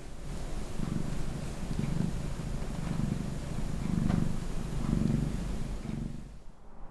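Tabby cat purring steadily while being stroked, the purr swelling and easing about once a second. It fades away near the end.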